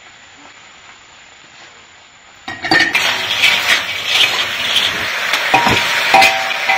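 River snails stir-frying in a wok: loud sizzling with the scrape of the spatula and the clicking of shells against the pan, starting suddenly about two and a half seconds in after a faint hiss.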